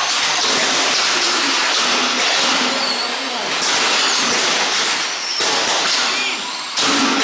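Radio-controlled stockcars racing past close by: a steady rushing hiss of motors and tyres on the track, with faint high whines gliding as cars pass, dipping and surging a few times as the pack goes by.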